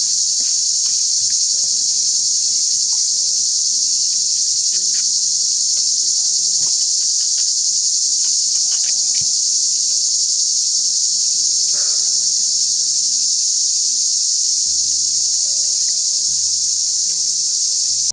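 Loud, steady chorus of singing insects, a continuous high shrill that cuts off suddenly at the end. Faint melodic background music plays underneath.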